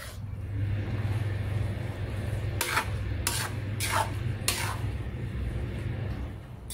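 A cooking utensil stirring and scraping fried rice vermicelli and meat in a pan, with four sharp scrapes or knocks in the middle, over a steady low hum.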